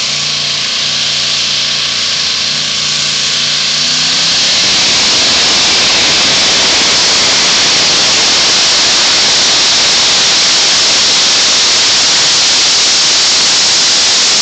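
Twin-engine modified pulling tractor running at full throttle as it drags the weight sled. Its engine note grows louder over the first four seconds and then turns into a steady, very loud, harsh blare as it comes close.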